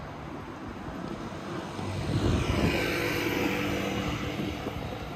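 A motor vehicle passing close by. It swells to its loudest about two and a half seconds in, with a falling pitch, over steady street noise.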